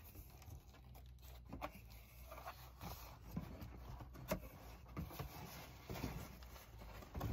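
Large corrugated cardboard shipping box being opened by hand: its flaps are pulled back and folded over, with faint scraping and rustling of cardboard and a handful of light knocks.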